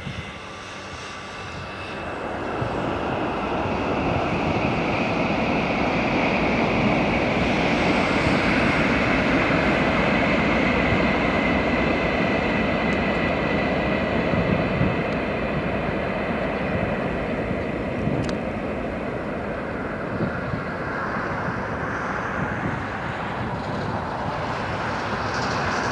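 Train rumbling across a river bridge: the rumble swells over the first few seconds and then holds steady, with a faint high whine near the middle.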